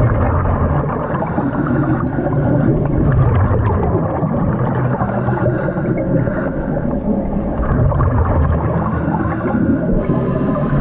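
Underwater wet stick-welding arc burning as an electrode is run along a steel bracket: a steady, dense crackling rumble, with a higher hiss that comes and goes about every four seconds.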